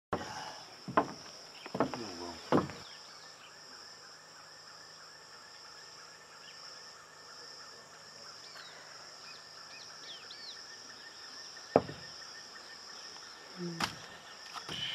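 Rainforest ambience: a steady high-pitched insect drone with short bird chirps over it. About a second in come three footsteps on wooden deck boards, roughly a second apart, and two more single knocks come near the end.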